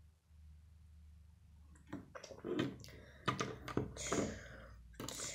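Plastic Lego bricks clicking and rattling as they are handled and pressed onto a model car, a quick series of sharp clicks starting about two seconds in.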